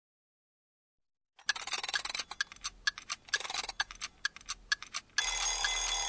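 Digital silence, then about a second and a half in a clock starts ticking, with irregular clicks around a small repeating tick. About five seconds in, a bright layer of steady ringing tones comes in over the ticking as the music begins.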